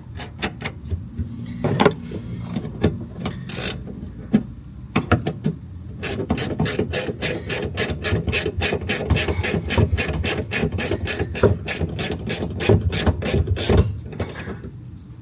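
Hand ratchet wrench clicking as a fastener is run down: a few scattered clicks at first, then about six seconds in a fast, even run of about five clicks a second that stops shortly before the end.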